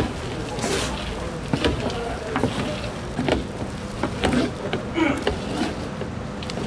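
Wooden paddles scooping and tossing a heap of small syrup-coated oranda puffs in a large steel pan, making irregular scrapes and clatters as the puffs tumble and the paddles rake across the metal, over a steady low hum.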